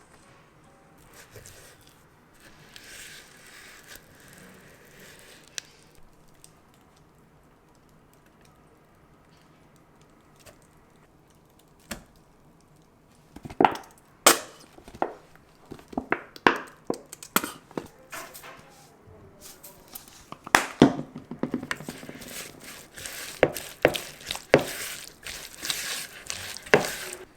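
Kitchen handling sounds: after a quiet stretch, irregular sharp knocks and clicks from about halfway through, like utensils, a knife or dishes striking a hard surface, with some rustling near the end.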